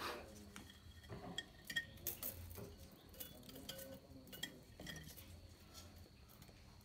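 Faint, scattered metallic clinks and ticks as the timing chain, pliers and a new head gasket are handled around the cylinder studs of a Linhai 300 ATV engine.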